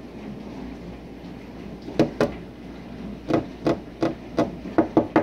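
About nine sharp knocks, starting about two seconds in and coming in irregular singles and pairs, like something tapping or thumping on wood.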